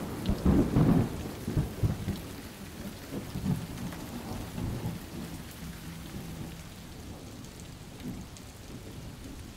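Rain falling steadily on a wet forest floor. Loud, low rumbling thumps fill about the first two seconds, and a fainter low rumble continues under the rain after that.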